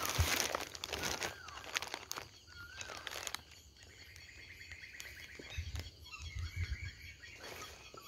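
Quiet night-time outdoor sounds: a short wavering animal call repeated three times in the first few seconds, about one and a half seconds apart, and an insect trill around the middle. Light rustling of leaves and clicks from handling the snake tongs run underneath.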